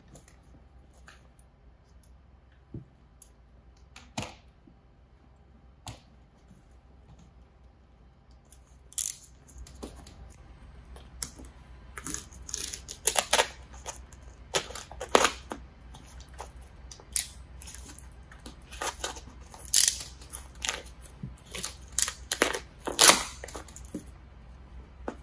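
Plastic airtight membrane crinkling and rustling as it is pressed and folded by hand around a timber joist end, in sharp irregular crackles that grow busy about nine seconds in, with a few faint taps before that.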